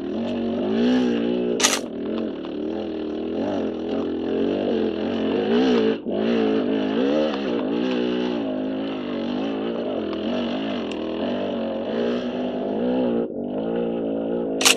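KTM dirt bike engine rising and falling in revs as the throttle is worked on and off along a trail. A sharp knock comes about two seconds in and another near the end.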